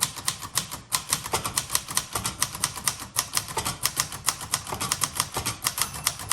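Typing on a 1960s Singer Scholastic T4 portable typewriter built by Royal: a steady run of keystrokes, several a second, each type bar clacking against the platen.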